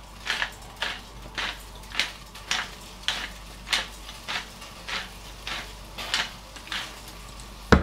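Stainless steel pepper mill being twisted to grind black pepper: a steady series of short crunching rasps, about two a second. A sharp knock near the end.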